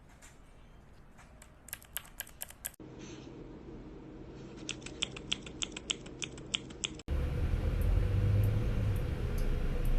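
Gateron MX mechanical keyboard switches on a keychain tester being pressed and released in quick runs of sharp clicks, about six near 2 s and about ten between roughly 4.5 and 7 s. After an abrupt cut about seven seconds in, a louder steady low hum takes over with only faint clicks above it.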